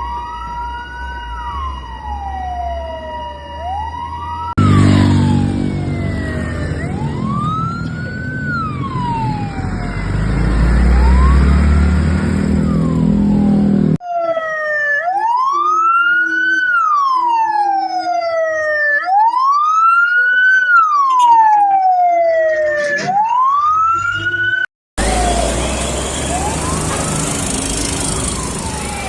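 Fire engine sirens wailing, cut together from several recordings: each rises and falls in pitch about every four seconds. In the first few seconds a steady tone sounds alongside, and the next stretch carries a truck engine's rumble underneath. Near the end the wail is half-buried in heavy noise.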